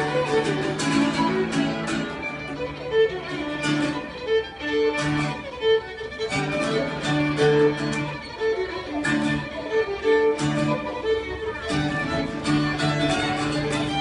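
Violin and acoustic guitar duo playing a tune: the violin bows a melody of held notes over rhythmic strummed guitar accompaniment.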